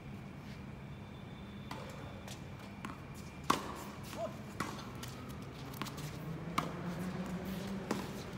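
Tennis ball being struck by rackets and bouncing on a hard court: a handful of sharp pops roughly a second apart, starting about halfway through, the first the loudest, over a steady low hum.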